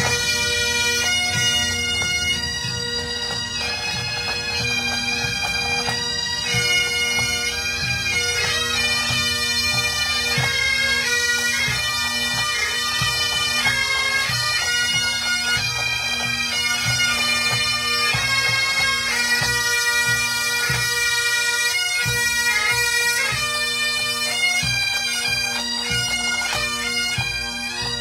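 Highland pipe band marching and playing: massed bagpipes carry the tune over their steady drones, with side drums and tenor drums beating time underneath.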